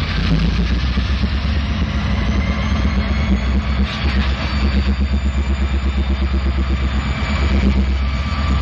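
Diesel locomotive engine running under load as it moves a cut of hopper cars, a heavy low rumble with a quick, even pulsing beat.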